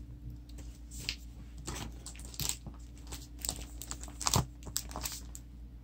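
Clear plastic page protectors and sleeved sticker kits being handled and shuffled, crinkling and rustling in scattered short bursts. There are a couple of sharper crackles about two and a half and four and a half seconds in.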